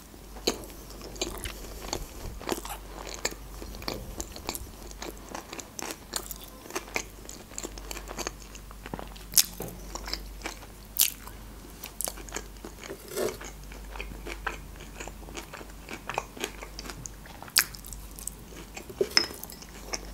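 Close-miked chewing of a mouthful of baked sushi roll: wet mouth clicks and smacks at irregular intervals, with a few sharper, louder ones around the middle and near the end.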